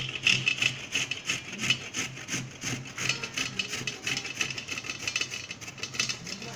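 Peeled tapioca (cassava) root being grated on a stainless-steel box grater: quick, rhythmic rasping strokes, several a second, as the root is rubbed up and down the grating face.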